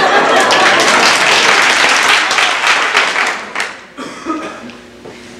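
Audience applauding with laughter mixed in, a dense spatter of clapping that dies away after nearly four seconds.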